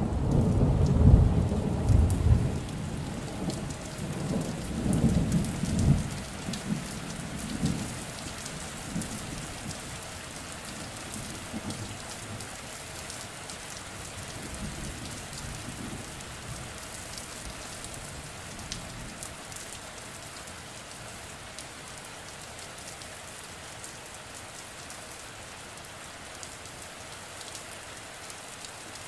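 Steady rain falling, with a roll of thunder rumbling loudest in the first few seconds and dying away by about eight seconds in.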